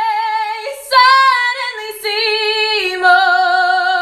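A woman singing long held notes with vibrato, unaccompanied; the pitch steps up about a second in and drops again about three seconds in.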